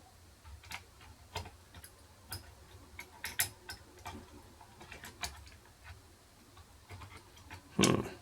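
Wire lever-lock picks clicking and scraping inside the keyhole of a single-lever door lock: irregular light metallic ticks, with one louder scrape near the end.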